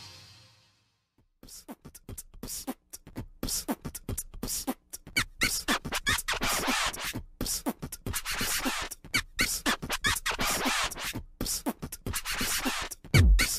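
Choppy, stuttering electronic sound effects with beatbox-like vocal hits, clicks and short falling zaps, starting about a second and a half in. Near the end a heavy bass beat kicks in.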